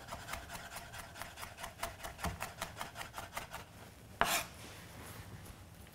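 Chef's knife rapidly mincing garlic on a cutting board, an even run of about six or seven taps a second that stops about four seconds in. A single brief, louder noise follows shortly after.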